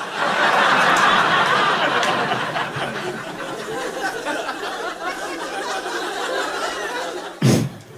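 Live comedy-club audience laughing at a punchline, loudest at the start and slowly dying down. A short sharp burst close to the microphone comes near the end.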